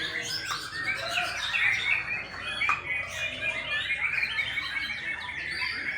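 Several white-rumped shamas singing at once in a songbird contest, a dense, unbroken stream of overlapping whistles and chirps.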